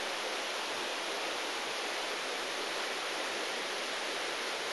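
A steady, even hiss with nothing else over it.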